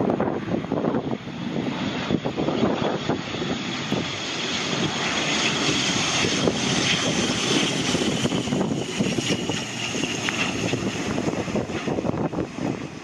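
ATR 72-500 turboprop approaching to land, its two Pratt & Whitney PW127 engines and six-bladed propellers giving a steady drone and whine. The whine peaks midway and sits slightly lower as the plane passes. Gusty wind buffets the microphone throughout.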